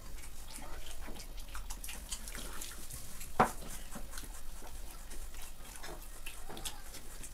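Eating sounds: wet chewing and lip-smacking as two people eat masala dosa by hand, with many small irregular clicks and one sharper click about three and a half seconds in.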